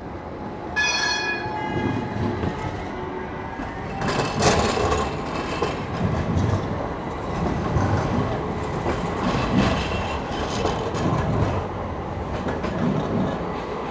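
Tram passing close by. A short high-pitched ring or squeal comes about a second in, then its wheels rumble and clatter on the rails, loudest about four to five seconds in.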